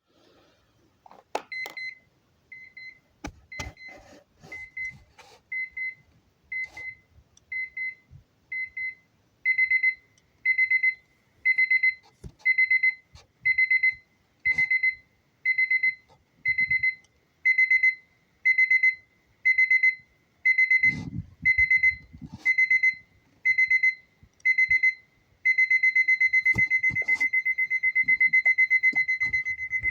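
Alarm clock going off with a high, repeating beep. The beeps start soft in short groups, become louder bursts about once a second from roughly ten seconds in, and near the end run together into fast continuous beeping. A few faint knocks and one dull thump about two-thirds of the way through.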